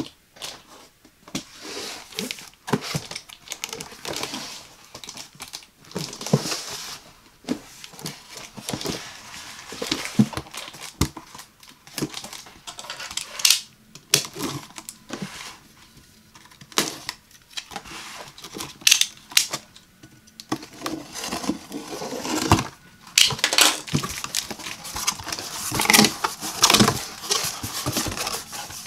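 Close-miked handling of a cardboard box: many sharp taps, scrapes and rustles as it is turned over and its packing tape is slit with a snap-off utility knife, then cardboard flaps folding open.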